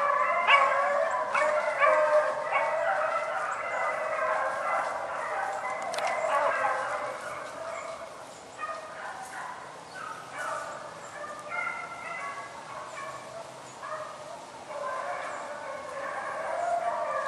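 A pack of rabbit-hunting dogs baying and yelping together, many voices overlapping as they run a rabbit's trail; the cry is full at first, thins out around the middle and swells again near the end.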